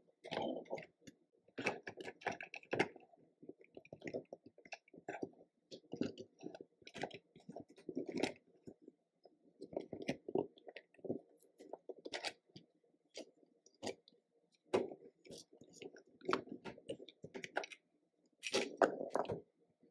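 Small plastic toy excavator and dump truck being worked by hand, scooping Play-Doh and loading it into the truck bed. The sound is a run of irregular soft squishes, plastic scrapes and clicks.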